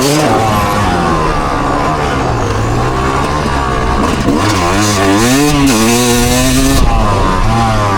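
Loud vehicle engine being revved over and over, its pitch rising and falling in quick swells, the busiest run of revs about halfway through.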